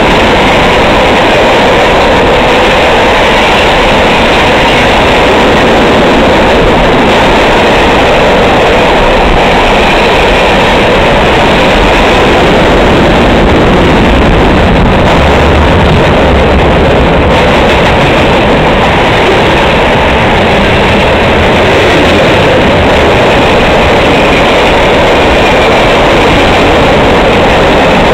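CSX freight train's cars rolling past: a loud, steady noise of steel wheels running on the rails.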